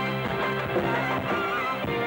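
Live rock band playing: electric guitar, keyboards and drums.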